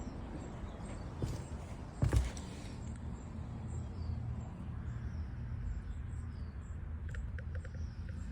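Outdoor ambience: small birds chirping repeatedly over a steady low rumble, with a single thump about two seconds in.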